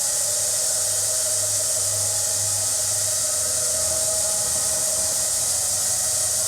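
Steady hiss inside a small passenger lift car, with a low hum and a faint steady whine underneath, as the lift waits or travels.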